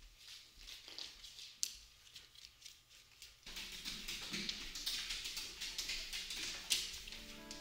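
Soft footsteps in slippers on a wooden floor, a run of light taps and shuffles that grows busier about halfway through, with a couple of sharper clicks.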